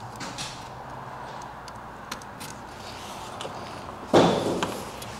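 Hand-work noises while a braided poly hose is cut with a utility knife and worked off a barbed plastic fitting: scattered small clicks and rubbing. About four seconds in comes a single loud scraping thump that dies away within half a second.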